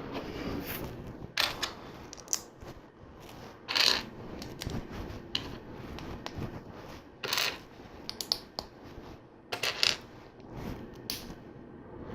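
Small plastic LEGO pieces clicking and rattling as they are handled and snapped together, in irregular sharp clicks with short rattles, the strongest about 4, 7.5 and 10 seconds in.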